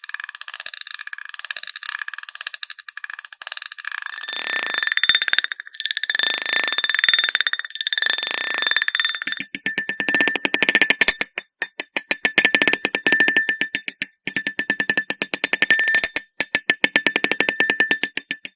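Rapid tapping on glass dishes: a fast, continuous run of taps, each setting the glass ringing with steady high tones. From about nine seconds in the taps come denser and fuller.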